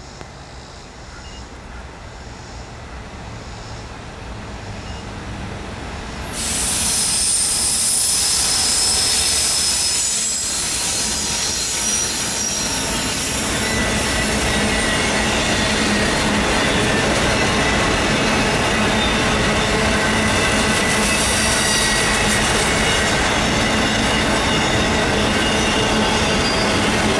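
Two GE Dash 9-40CW diesel locomotives approaching with their engines growing steadily louder, then passing close with a sudden jump in loudness about six seconds in. After that comes a long string of autorack freight cars rolling past: steady wheel-on-rail rumble with thin high squealing tones over it.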